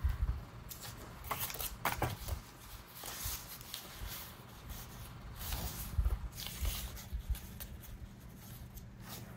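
Sheets of paper rustling and being handled, with scattered light clicks and soft thumps on the work table.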